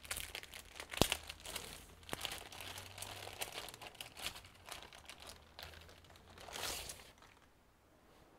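Clear plastic bag crinkling and crackling as it is pulled off a laptop, with a sharp click about a second in and a last swell of rustling near the end.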